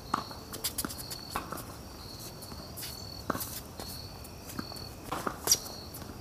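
Tennis being played on a hard court: quick footsteps and shoe scuffs with sharp pops of the ball being struck, the loudest about five and a half seconds in. Crickets chirp steadily behind.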